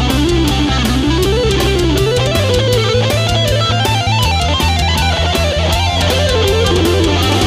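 Heavy metal music: an electric guitar plays a fast melodic run that climbs and falls, over held bass notes that shift every second or two and a steady beat of drum and cymbal hits.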